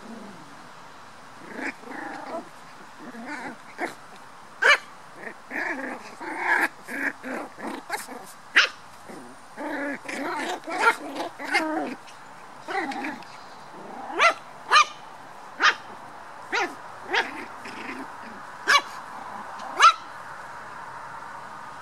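Toy poodle puppies play-fighting, growling and yapping. In the second half the sounds thin out to single sharp yaps about a second apart.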